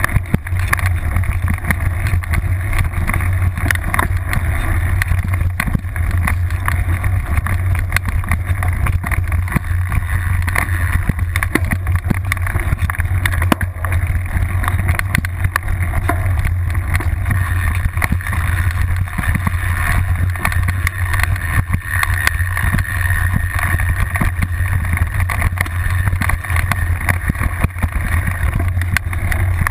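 Mountain bike riding fast over a rough forest trail, heard through a camera clamped to the seatpost: a constant low rumble of wind and frame vibration with frequent clicks and knocks as the bike rattles over bumps.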